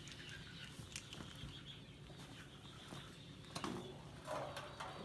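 Faint rustling of dry straw being pulled apart and spread into wooden chicken-wire cages, with a few short knocks and louder rustles near the end.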